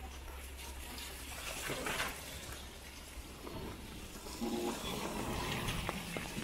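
Wet-street ambience on a rainy night: water running and splashing over a steady low hum that fades out about halfway, with a brief louder rush of water about two seconds in.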